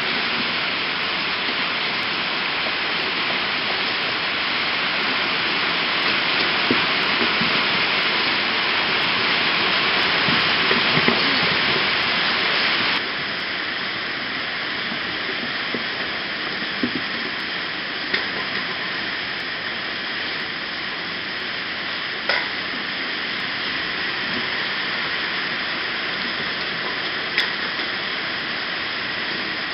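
Steady heavy rain hissing, its level dropping abruptly about 13 seconds in. A few faint sharp ticks come through it.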